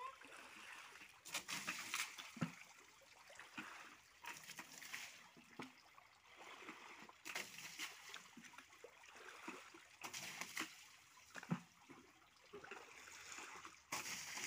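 Pond water thrown by hand from a container splashing against a tractor's tyre and body, in irregular splashes every two to three seconds, with water trickling and sloshing in between.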